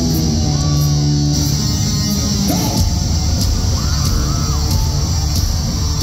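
Hard rock band playing live through an arena PA: heavy distorted electric guitars over bass and drums, with cymbal hits on a steady beat.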